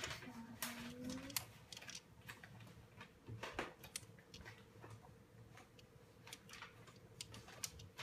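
Faint, irregular clicking of abacus beads being flicked up and down by a child's fingers during a calculation.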